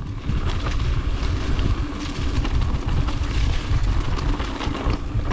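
Wind rumbling on the microphone while a mountain bike rolls down a dirt trail, a steady, gusting low rumble.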